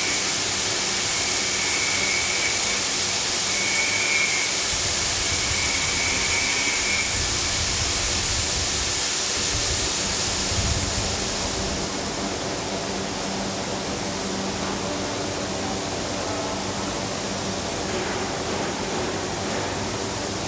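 Steam locomotive venting with a loud, steady rushing hiss that eases off about twelve seconds in. A faint high whine comes and goes three times in the first seven seconds.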